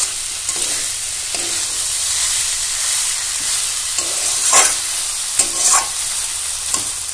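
Bottle gourd greens and vegetables sizzling in a metal pan while a metal spatula stirs them, with a steady high sizzle and several sharper scrapes of the spatula against the pan, the strongest about four and a half seconds in.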